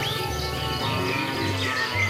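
Background music with low notes that change in steps, and a few high bird-like chirps near the end.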